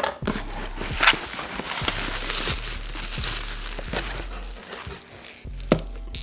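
Plastic bubble wrap crinkling and crackling as it is pulled off a bottle packed in a cardboard box, with a sharp burst of crackle about a second in. Quiet background music plays underneath.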